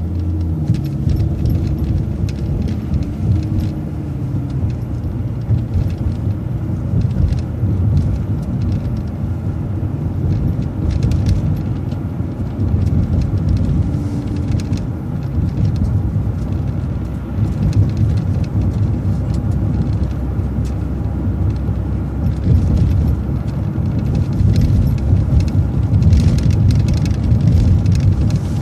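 City transit bus driving, heard from inside the cabin: a steady engine and road rumble with light rattles. An engine tone rises and falls in pitch in the first few seconds and again about halfway through.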